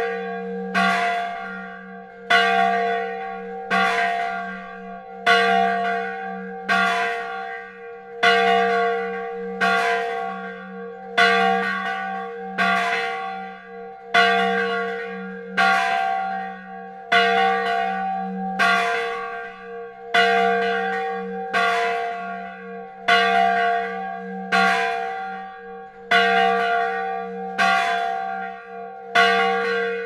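A single old church bell rung by hand with a rope, striking steadily about once every second and a half. Each stroke's ringing carries on into the next.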